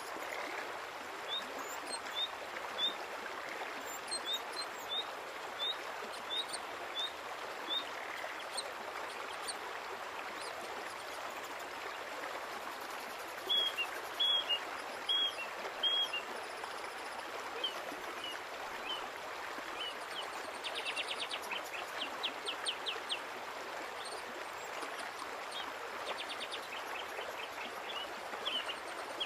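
Small songbird calling over a steady rushing hiss: a run of short high chirps about twice a second, then a louder group of about five notes halfway through, and a quick buzzy trill a few seconds later.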